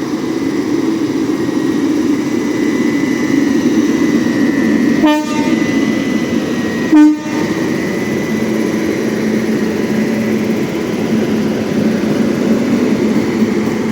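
Rajdhani express train pulling slowly out of the station: a steady rumble of the train moving, with two short horn toots about two seconds apart, the second louder.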